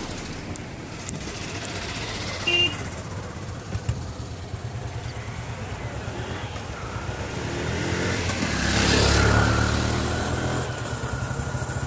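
A motor vehicle passes by: a low engine rumble grows louder, peaks about nine seconds in, then fades. A short pitched tone sounds briefly about two and a half seconds in.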